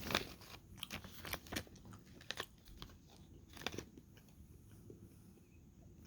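A person chewing a bite-sized pork meat snack close to the microphone: faint, irregular wet clicks and smacks of the mouth, bunched in the first couple of seconds.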